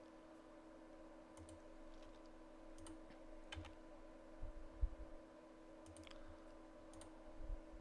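Faint, scattered computer mouse clicks and keyboard key presses over a steady electrical hum, with a stronger low thump about five seconds in.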